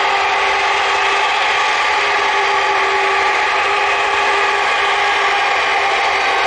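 The four GE CF6-80C2 turbofan engines of a Boeing 747-400 freighter running steadily as it rolls along the runway: constant jet noise with a steady whine over it.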